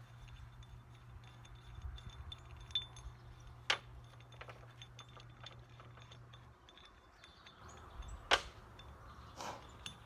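Metal clinks from handling a Kubota BX24 tractor's front wheel hub and lug nuts while fitting the wheel: two sharp clinks, about four seconds in and again near eight seconds, with lighter ticks between. A faint low hum runs underneath and stops about two-thirds of the way through.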